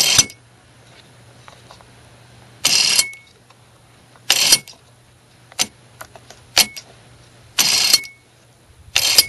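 Black & Decker Auto Wrench's small battery-powered electric motor whirring in five short bursts of under half a second each, driving the adjuster worm through a tiny toothed belt to open and close the jaw. Two sharp clicks fall between the middle bursts.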